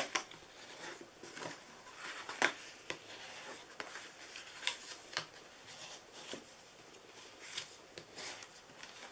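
Cardstock being folded and its score lines pressed with a bone folder: faint paper rustling and scraping, broken by scattered short, sharp strokes.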